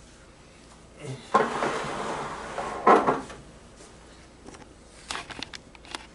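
A scraping slide of about a second and a half that ends in a sharp knock, followed by a few light clicks.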